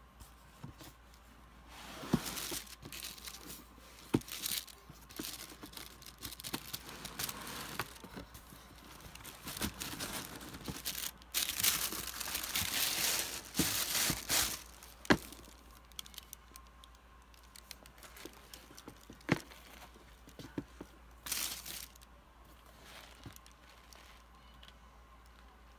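Cardboard shoebox and tissue-paper wrapping handled as sneakers are unboxed: irregular rustling and crinkling, with a few sharp taps and knocks of cardboard. The rustling is busiest about halfway through.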